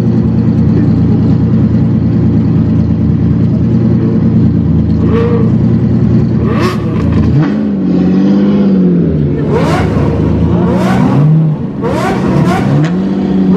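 Supercar engines idling with a deep, steady hum. About seven seconds in, a car pulls away with several rev blips that rise and fall in pitch, with a few sharp exhaust pops between them.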